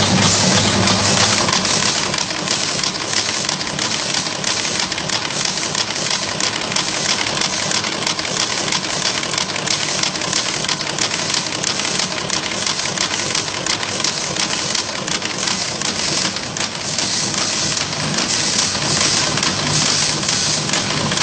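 Side cut anchor chain machine running, making a rapid, steady mechanical clatter of fine ticks as it bends and cuts wire into chain links.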